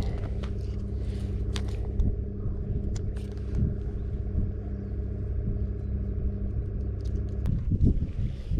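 An engine running steadily with a low, even rumble, a few small clicks over it.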